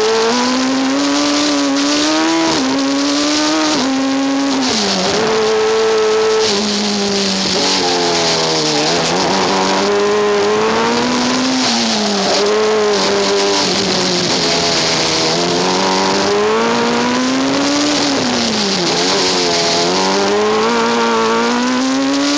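Formula Student race car engine heard onboard from the cockpit, revving up and falling away again several times as the car accelerates and slows round the track. A few seconds in, the pitch drops sharply twice. A steady hiss runs underneath.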